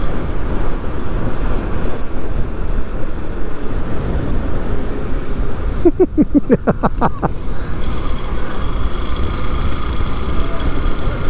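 Hero XPulse 200 motorcycle riding at road speed, with steady wind rush and road and engine noise. About six seconds in, a quick run of about ten short pitched beeps lasts just over a second, like a vehicle horn.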